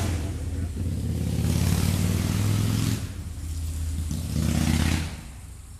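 A motor vehicle's engine running with a steady low hum that drops away about five seconds in.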